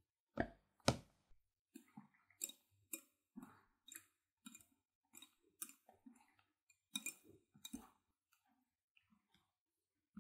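Wire whisk clicking against the side of a glass mixing bowl while stirring whipped cream. Two louder knocks about a second in, then light, faint clicks at roughly two a second that thin out near the end.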